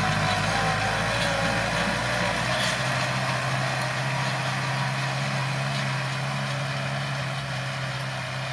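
Kubota M7040SU tractor's four-cylinder diesel engine running steadily under load as it pulls a tillage implement through dry soil, growing slightly fainter as the tractor moves away.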